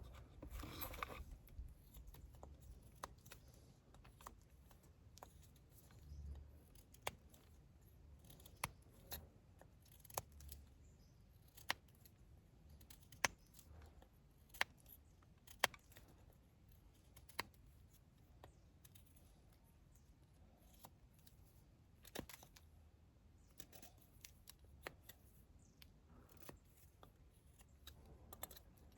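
Near silence broken by scattered faint sharp clicks and light taps at irregular intervals, as of small things being handled.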